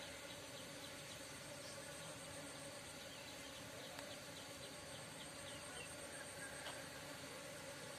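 Faint, steady buzzing of honeybees foraging on corn tassels, with a high insect trill and a quick run of high chirps around the middle.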